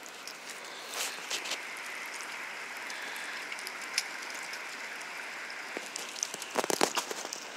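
Water dripping and trickling from a lifted wire-mesh crayfish trap into a shallow stream, a steady patter of small drops. A brief cluster of louder knocks comes near the end.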